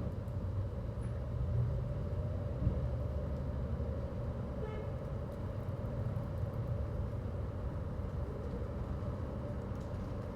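Strong wind buffeting the microphone in a steady low rumble, with small gusts. About halfway through there is one short, high toot.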